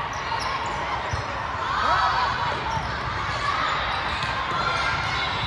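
Echoing din of a large hall full of volleyball courts: ball hits and bounces from many games at once under a wash of voices, with a call rising out of it about two seconds in.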